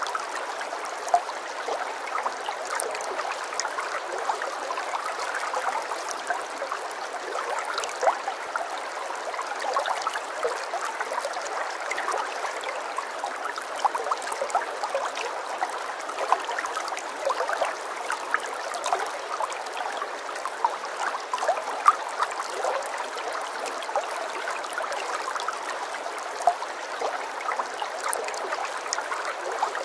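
Running water trickling and splashing steadily, with many small sharp drips and splashes through it.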